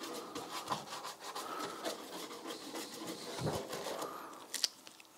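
Paintbrush dabbing and stroking polyester resin into glass-fibre mat on a fibreglass bonnet: a rapid run of short, soft brush strokes.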